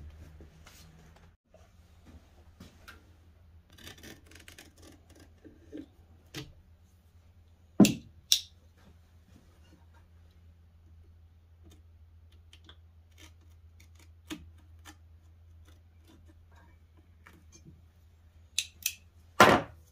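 Duct tape being laid and pressed down on a miter saw's metal throat plate: scattered small rubs and clicks over a low steady hum, with two loud sharp sounds about eight seconds in and a few more near the end.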